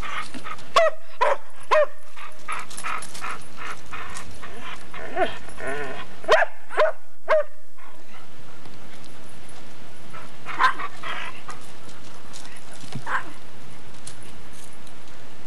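Dog giving short whines and yips in scattered bunches: a few about a second in, a longer run a little past the middle, and single ones later.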